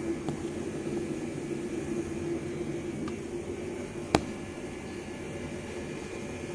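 A steady background hum and hiss, with one sharp click about four seconds in.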